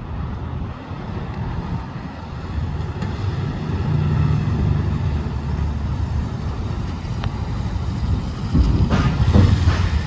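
Kawasaki Ninja 300's parallel-twin engine running as the motorcycle rides up, its sound growing louder and loudest near the end as it arrives close by.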